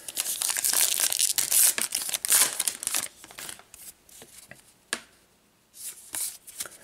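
Wrapper of a baseball card pack being torn open and crinkled for about three seconds, then softer rustling and clicks as the stack of cards is slid out and fanned through.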